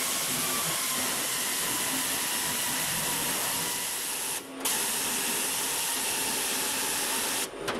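Plasma cutter cutting through sheet steel: a steady loud hiss of the cutting arc and air, stopping briefly about four and a half seconds in, then running again and stopping near the end.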